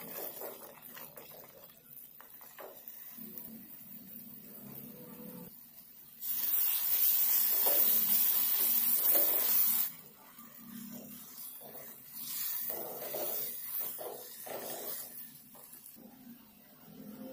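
Wooden spatula stirring and scraping thick ash gourd halwa around a metal pot as it cooks, in irregular scrapes and soft squelches. A loud hiss breaks in for about four seconds midway.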